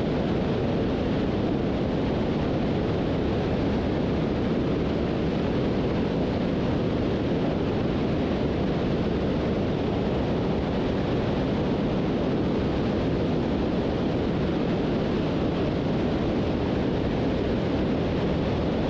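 Steady in-flight noise of a Beech 18 in its climb: the twin radial engines at climb power blended with airflow into one even, unchanging noise, with no separate engine tone standing out.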